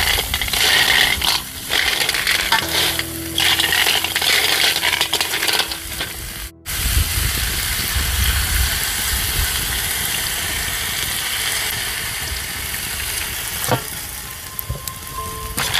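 Blood cockles, corn and pandan leaves sizzling in a hot wok over a wood fire as liquid is poured in. After a break about six and a half seconds in, the sizzle runs on as a steady hiss.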